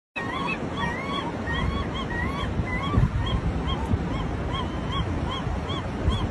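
Gulls calling: a steady run of short rising-and-falling notes, two to three a second, with a few longer rising calls in the first half, over a low rumbling noise.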